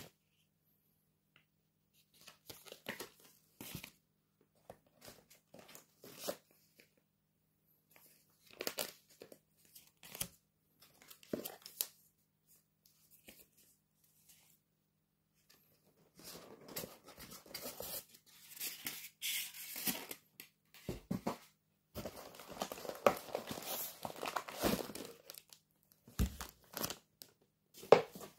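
Cardboard packaging and paper being torn open and unpacked, with rustling and crinkling of card and plastic wrap, in scattered short bursts over the first half and a longer stretch of continuous rustling in the second half.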